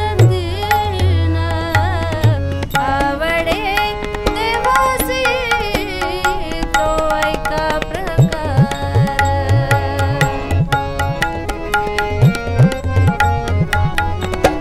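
A woman sings a Marathi devotional abhang to her own harmonium accompaniment, with a tabla pair keeping a lively rhythm. From about halfway in, the bass drum's strokes slide upward in pitch.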